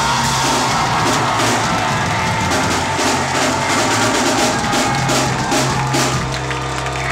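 Live band playing a hip-hop song without vocals: drum kit hits over a sustained bass line.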